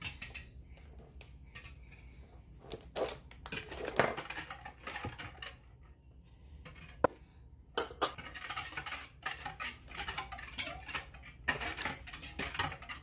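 Metal wire whisk beating an egg, milk and sugar mixture in a glass mixing bowl, clinking and scraping against the bowl's sides in irregular strokes. There is one sharp clink about seven seconds in.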